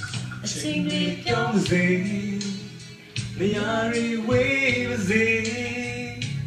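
A man and a woman singing a duet into one corded microphone over backing music, with a short break in the singing about three seconds in.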